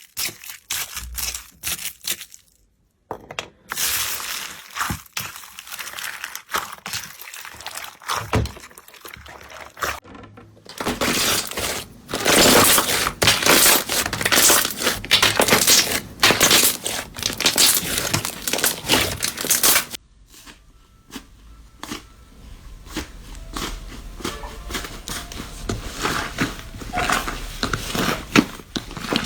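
Slime being squeezed, poked and pressed by hand across several short clips, with dense crackling, popping and crunching; the loudest, busiest crackling runs from about eleven to twenty seconds in.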